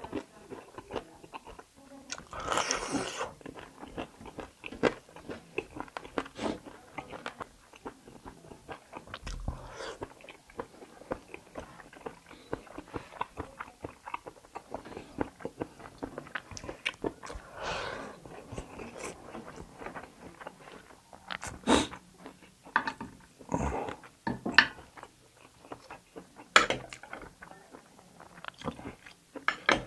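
Close-up chewing and biting into kalij pheasant meat and bones, with irregular crunches and wet mouth clicks. A few louder crunches come about 3 seconds in and again near 22, 24 and 27 seconds.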